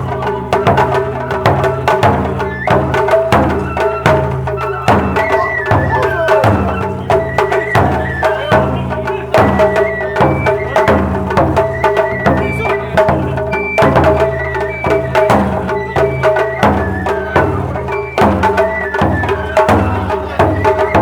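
Japanese festival bayashi music: a bamboo flute melody over drums, with dense sharp strikes keeping a steady beat.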